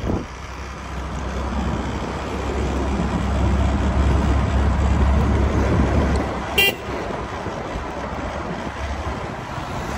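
Motor scooter riding along a road, a steady low rumble of the ride that grows louder through the middle, with one short horn toot about two-thirds of the way through.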